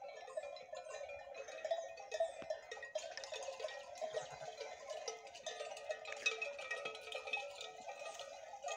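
Many neck bells on a flock of sheep and goats clanking and jingling together without a break, a dense jumble of overlapping rings.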